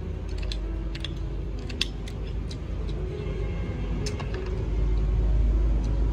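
Metal spoon clicking and scraping against grilled oyster shells, in short irregular clinks, over a steady low rumble that grows louder about five seconds in.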